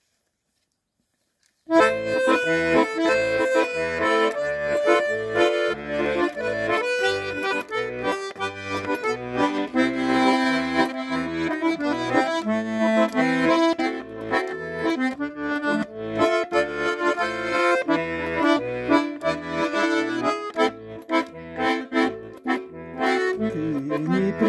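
Accordion playing the song's instrumental introduction, starting about two seconds in: a sustained melody and chords over an evenly alternating bass accompaniment.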